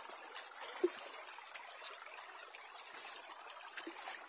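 River water running shallow over rocks, a steady rushing hiss that dips briefly about halfway through.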